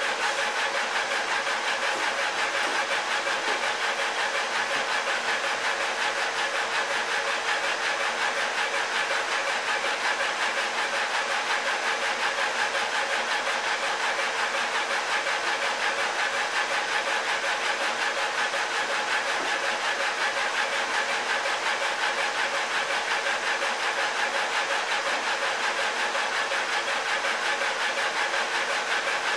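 Laser engraver running a raster engraving job on a tumbler: a steady machine whir with a held hum and a fast, even pulsing as the head sweeps back and forth.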